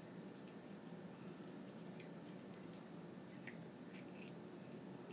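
Faint crackles and small clicks of boiled shellfish shell being pulled apart and peeled by hand, with one sharper click about two seconds in, over a steady low hum.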